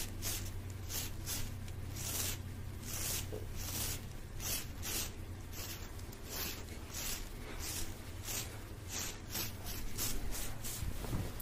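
Hands rubbing and brushing right against the microphone in quick repeated strokes, two or three a second, with a dry hiss, over a steady low hum.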